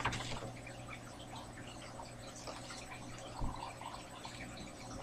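Faint rustling and small clicks of paper and items being handled in a box, with a soft bump about three and a half seconds in, over a steady low electrical hum.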